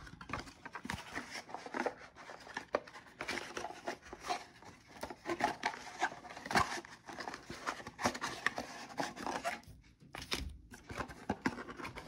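Packaging and trading cards being handled as a mystery card box is opened: irregular rustling, crinkling and small clicks and scrapes, with a brief pause near the end.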